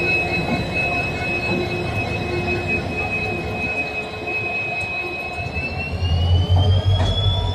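WDP4D diesel-electric locomotives passing close by: the engine runs with a steady high whine over a rumble of wheels on rail. Near the end the second locomotive draws level. The low engine rumble grows louder, the whine rises in pitch, and a single knock is heard.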